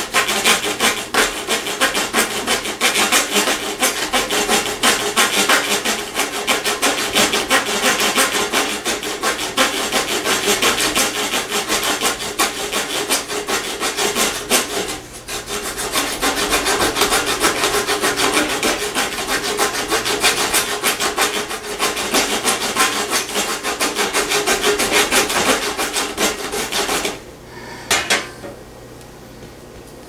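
Leatherman Blast multi-tool's folding saw blade cutting through a small piece of scrap wood in quick back-and-forth strokes, with a brief pause about halfway. The sawing stops a few seconds before the end, followed by a couple of sharp knocks.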